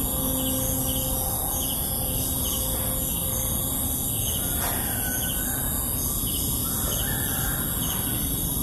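Rural morning ambience: small birds chirping over and over, with a rooster crowing in the middle.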